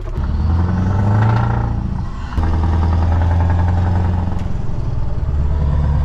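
Lorry's diesel engine heard through its open side-pipe exhaust, pulling loudly as the truck drives on. The note rises in the first second, dips briefly about two seconds in, then holds steady.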